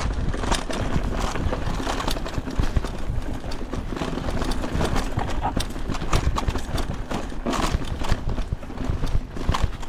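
A downhill mountain bike rattling hard over a rough trail: a dense, irregular clatter of knocks and clicks from tyres striking rocks and roots, with chain and frame rattle, over a steady low rumble.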